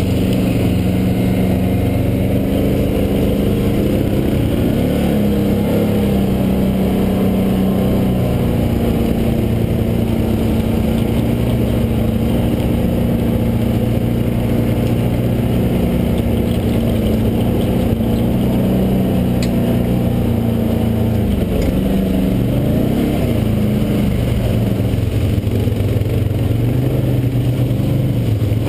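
Quad (ATV) engine running under way, close to the microphone, holding a steady pitch with small rises and dips as the throttle changes. The pitch wavers more often near the end.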